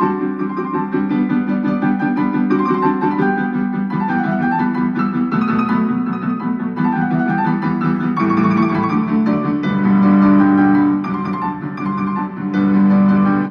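Piano music playing through a rebuilt Bose SoundTouch 20 speaker driven by an Up2stream amplifier, with a lot more bass now that its enclosure is sealed. The music cuts off suddenly at the very end.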